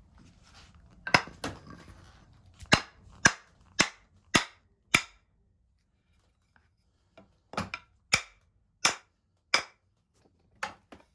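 Sharp wooden knocks as a wooden mallet drives the slip-fit Rinaldi Milano carpenter's axe head back onto its wooden handle. About fifteen blows come in two runs, roughly half a second apart, with a pause of about two seconds in the middle.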